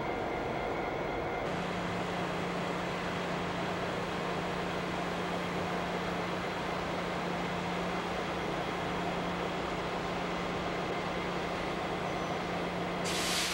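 Idling diesel locomotives in a rail yard: a steady mechanical rumble with a constant low hum. A brief loud hiss comes near the end.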